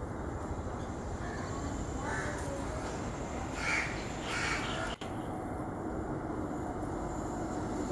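A crow caws a few times, loudest twice around four seconds in. Under it is the steady low rumble of an approaching electric-locomotive-hauled train.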